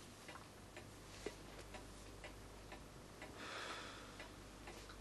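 Clock ticking about twice a second in a quiet room, with a brief soft hiss about three and a half seconds in.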